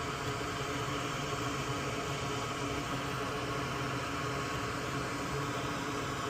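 Steady whir of a small electric fan with a low, even hum, unchanging throughout.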